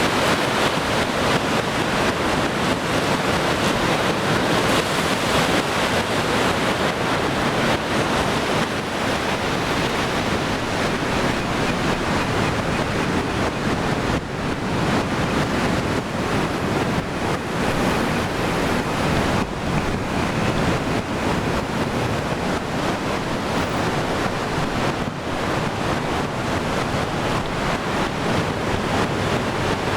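Sea waves washing on the shore at night: a steady, dense rush of surf with no separate breaks standing out.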